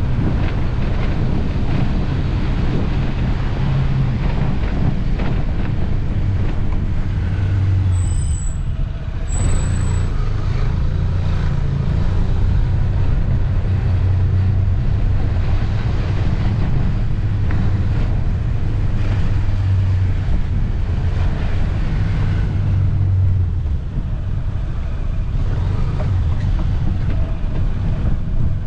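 Motorcycle engine running while riding, a steady low hum over road and wind noise, easing off briefly about a third of the way in.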